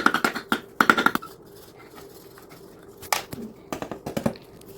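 Quick runs of taps from a small hammer striking a digging tool set against the hard block of a fossil dig kit, chipping it away, in three short bursts with pauses between.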